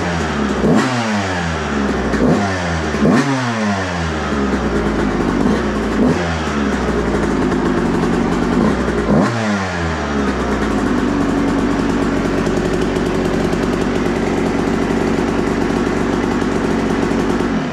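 Freshly rebuilt Yamaha YZ125 single-cylinder two-stroke dirt bike engine running, its throttle blipped about five times in the first ten seconds, each rev rising sharply in pitch and falling back. It then settles into a steady idle.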